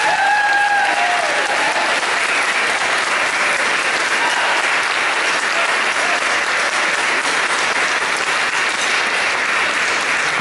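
Audience applauding steadily in a large room.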